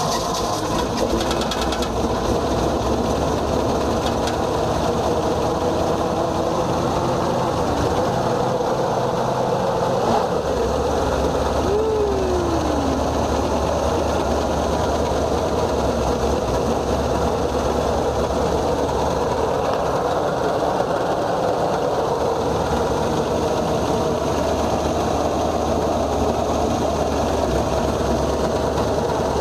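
1966 Dodge A100's engine running steadily just after a cold start, having sat unused for a while. A short falling whine comes about twelve seconds in.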